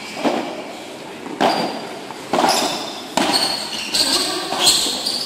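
Padel rally: the ball struck by rackets and bouncing, five sharp knocks from about a second in, each less than a second apart, with echo from a covered court.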